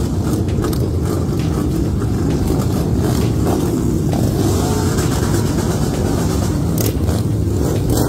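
Several big cruiser motorcycles running loudly together as they ride slowly off in a group.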